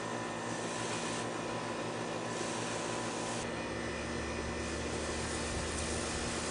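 Garden hose spraying water in a steady hiss that swells and eases every second or so, over a steady hum; a low rumble joins about halfway through.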